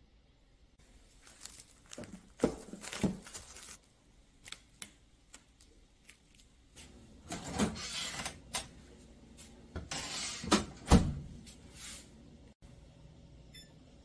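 Kitchen handling sounds: a silicone microwave lid is set over a ceramic baking dish with a few clicks and knocks. Later come scraping and knocking around a microwave oven, with one sharp thud about eleven seconds in.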